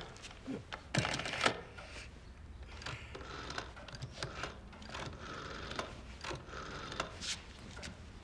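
Rotary telephone being dialled: bursts of quick clicks from the dial, repeated number after number, after a knock about a second in.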